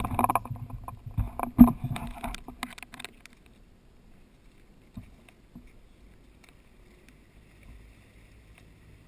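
Seawater splashing and sloshing against a GoPro's sealed dive housing held at the surface, with sharp knocks, for about the first three seconds. After that only faint, muffled water sound.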